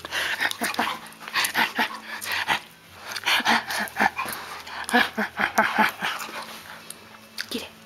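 Golden retriever making excited play noises while spinning after her tail to get a hair clip off it: a run of short, irregular snuffles and mouthing sounds, with a few brief whines about four to six seconds in.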